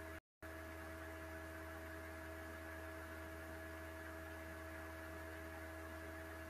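Steady electrical hum with a constant hiss: the recording's own background noise. It drops out completely for a moment about a quarter of a second in.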